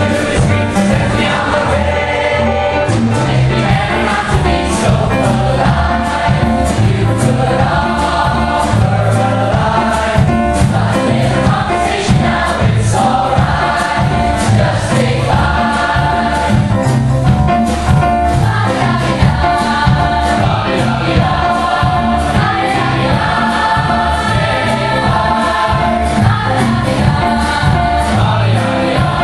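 A large mixed choir of boys and girls singing with a live band, over a steady beat from a drum kit.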